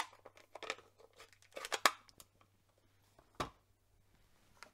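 Handling of a plastic Stampin' Up ink pad and an acrylic stamp block. A sharp click at the start as the pad's case is opened, then scraping and tapping, and a dull knock about three and a half seconds in.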